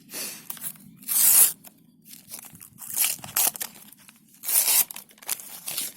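Panini sticker packets being torn open by hand: three loud rips, with softer crinkling and clicks of the wrappers between.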